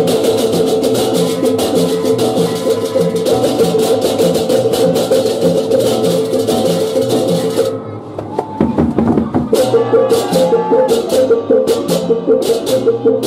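Balinese beleganjur processional gamelan playing: fast, dense clashing of ceng-ceng cymbals over a steady ringing gong tone and an even drum and gong beat. The playing breaks off about eight seconds in and picks up again a second or so later.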